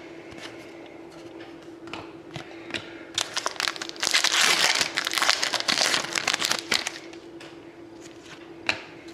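Crinkling of plastic or foil packaging being handled, loud and dense for about three and a half seconds in the middle, with light clicks and rustles before and after, over a faint steady hum.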